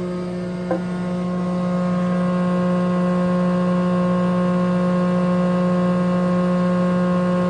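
Oliver 299-D 24-inch planer running with no board in it: the 5-horsepower direct-drive motor and four-knife cutterhead spinning with a steady hum. A single light knock comes about a second in.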